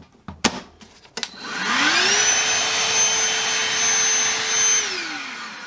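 DeWalt DCV501HB 20V cordless handheld vacuum: a couple of clicks, then its motor whines up to speed within about a second. It runs steadily for about three seconds, then winds down as it is switched off near the end.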